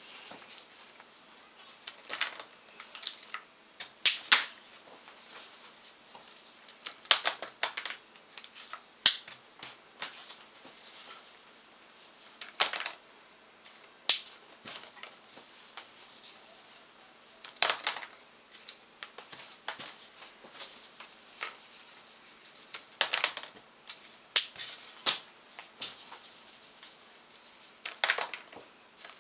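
Sharp plastic clicks and snaps in quick clusters every few seconds as trotline bait bags are opened, emptied of foam darts, refilled and closed one after another.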